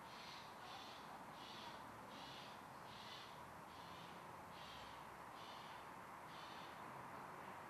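Faint, evenly repeated short high chirps, about three every two seconds, from a calling animal, over a low steady outdoor hiss.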